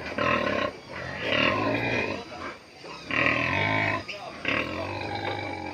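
A large sow grunting, about four drawn-out, rasping grunts in a row.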